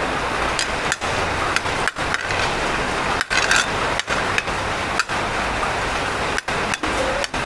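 A metal serving spoon tapping and scraping on a ceramic plate of biryani rice, over a steady rushing background noise that drops out briefly several times.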